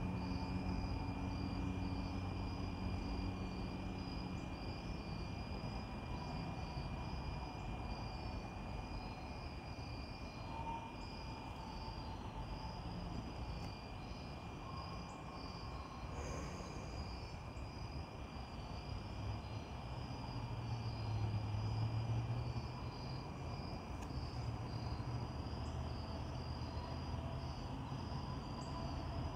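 Crickets chirping steadily in a high, fast-pulsing trill, with a low rumble swelling and fading about two-thirds of the way through.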